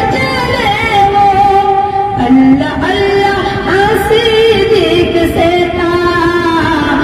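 A boy singing a naat, an Urdu devotional song in praise of the Prophet, solo in a high voice with long held notes.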